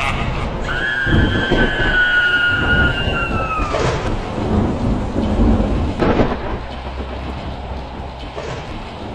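Thunderstorm sound effect: steady rain with rumbling thunder and sharp claps about four and six seconds in. A high drawn-out tone, falling slightly, sounds over the first few seconds.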